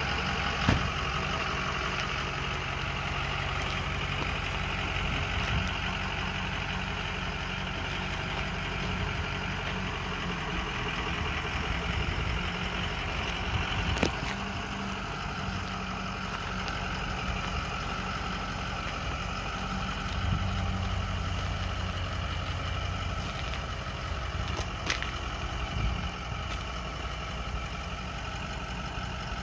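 Ford F450 Super Duty bucket truck's engine idling steadily while the Terex aerial boom is raised, with a few sharp clicks.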